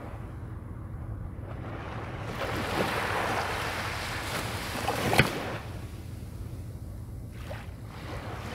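Small waves washing in against the shore. The wash swells about two seconds in and ends with a sharp slap about five seconds in, over a steady low hum.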